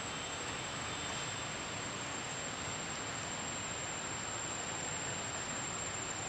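Steady outdoor background hiss with a thin, unchanging high-pitched whine running through it; no distinct event stands out.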